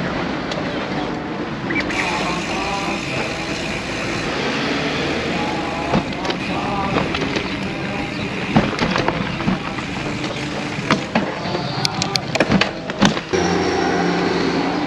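Wind and road noise on a cycling action camera's microphone as a bicycle is ridden, with a cluster of sharp clicks and knocks about twelve seconds in.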